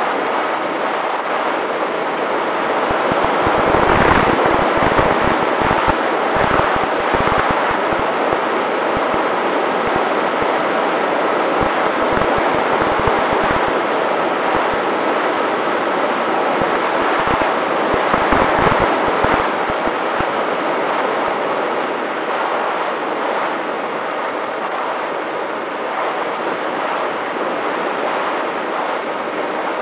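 Air rushing over the onboard camera's microphone of a Volantex Ranger 1600 RC plane in flight, with a faint steady whine from its electric motor and propeller. The wind buffets louder a few seconds in and again a little past the middle.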